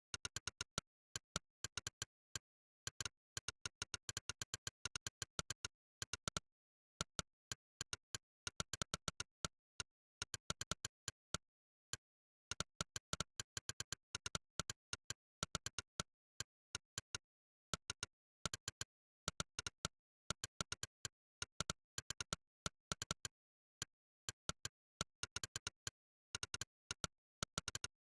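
Monkeytype's synthetic "click" keystroke sound, one sharp electronic click per key press, coming several times a second in uneven bursts of fast typing. There are brief pauses between runs, with dead silence between the clicks.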